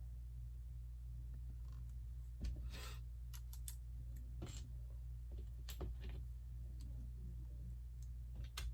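LEGO plastic pieces being handled and pressed together: scattered sharp clicks and small rattles, with a short scraping rustle about two and a half seconds in. A steady low hum runs underneath.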